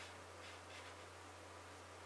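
Near silence: room tone with a steady low hum and faint hiss, and a few soft, faint rustles about half a second in.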